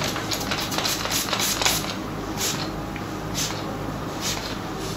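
Hand spray bottle misting hair: a quick run of short hissing sprays, then single sprays about once a second.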